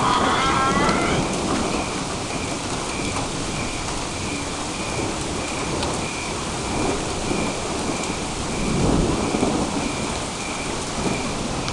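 Heavy rain falling steadily with thunder rumbling, the thunder swelling about nine seconds in. Over it runs a faint high chirp, repeating about one and a half times a second.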